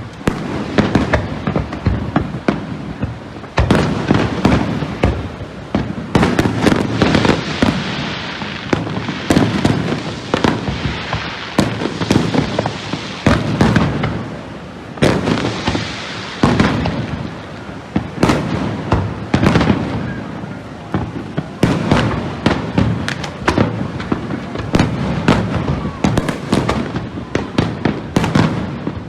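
Fireworks display: a dense, continuous barrage of bangs and booms, with crackling between them.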